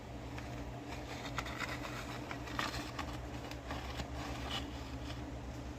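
Light clicks and rustles of a plastic model car being handled, over a steady low hum.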